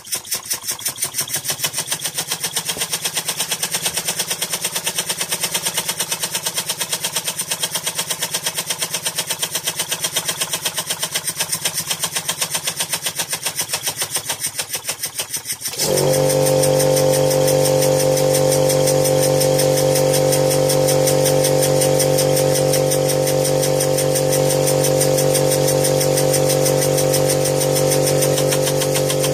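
Model uniflow steam engine running on compressed air, its exhaust beating fast and evenly. About sixteen seconds in, a small air compressor cuts in with a steady motor hum under the beats.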